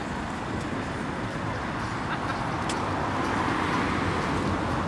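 City street traffic: cars passing on the adjacent road as a steady rush of tyre and engine noise, with one vehicle swelling louder about three to four seconds in.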